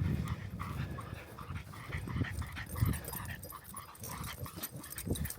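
A dog panting softly and irregularly.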